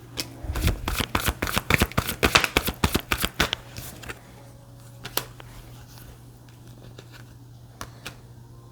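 A deck of tarot cards being shuffled: a fast run of flicking clicks for about three and a half seconds, then a few separate clicks.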